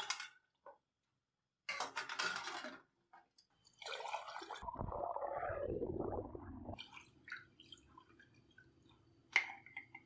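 Water poured from a drinking glass splashing into a steel pot that already holds water, a gush lasting about three seconds from about four seconds in. Shorter clattering sounds come before it, and there is a sharp click near the end.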